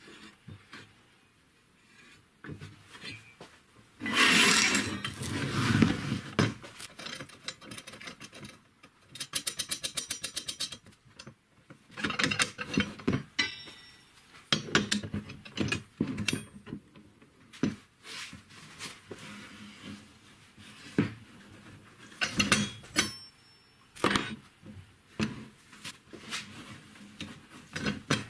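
Flat steel strips being handled and bent on a hand-operated bench bender: irregular metal clanks, knocks and scrapes against the tool and the wooden bench. The loudest is a scraping stretch of about two seconds a few seconds in, and a rapid, even run of ticks lasts about two seconds a third of the way through.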